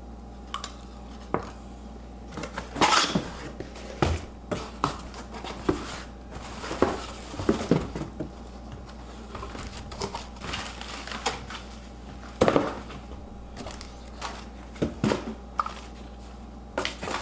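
Unpacking noises: irregular knocks, taps and clatters as cardboard boxes and plastic-wrapped pendant-light parts are handled, with short rustles of plastic wrap and cardboard flaps.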